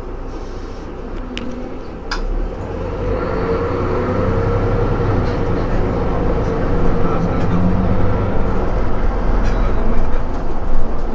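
Mercedes-Benz Citaro G C2 Euro 6 articulated bus's diesel engine running while the bus stands still. About two seconds in, after a couple of light clicks, the deep rumble and a steady hum grow louder and keep swelling slowly.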